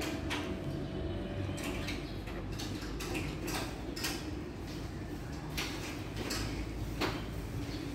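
Candles being set into metal votive racks: scattered light knocks and clinks, roughly one every second or so, over a steady low hum.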